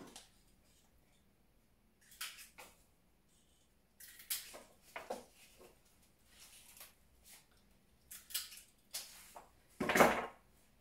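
Irregular rustling and light clicks of cut flower stems and foliage being handled and worked into a floral arrangement, with a louder thump just before the end.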